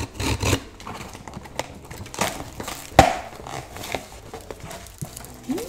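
A box cutter scrapes along the packing tape of a cardboard shipping box, with scattered knocks and clicks as the box is handled and its flaps pulled open. One sharp knock about three seconds in is the loudest.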